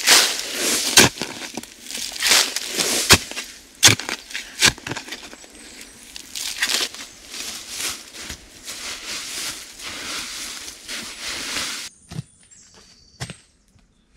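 Repeated scraping and crunching strokes with sharp knocks and cracks from hand work on the forest floor and its branches. About twelve seconds in it cuts to a much quieter forest with a few soft knocks and short high bird chirps.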